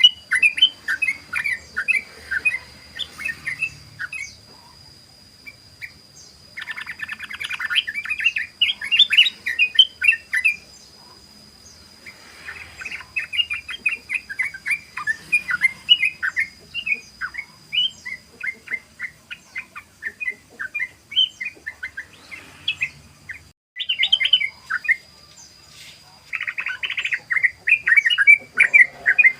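Yellow-vented bulbul (trucukan) singing its rapid, chattering 'ropel' song: long runs of quick bubbling notes, broken by short pauses about four, twelve and twenty seconds in. A faint steady high whine runs underneath.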